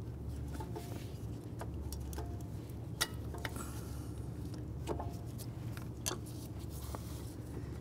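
Scattered light clicks and rattles of a plastic wiring-harness connector being squeezed at its tab and pulled apart by a gloved hand, over a steady low hum.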